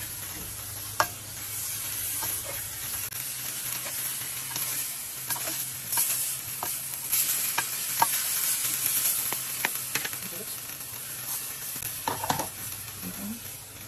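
Julienned vegetables sizzling in hot oil in a stainless steel wok as a spatula stirs and tosses them, with scattered clicks and scrapes of the spatula against the pan.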